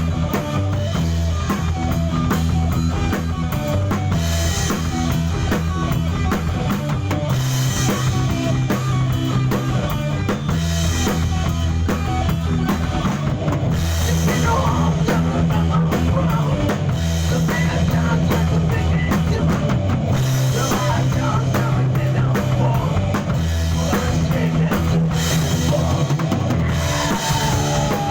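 A rock band playing a song: drum kit with a cymbal crash about every three seconds over a steady bass line, with guitar lines on top.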